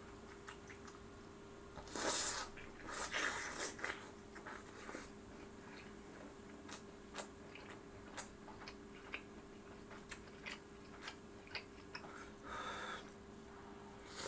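Close-miked chewing and biting of food, with many small wet mouth clicks and a few louder munching bursts about two and three to four seconds in, over a faint steady electrical hum.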